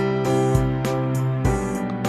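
Instrumental background music with sustained pitched notes and a steady beat.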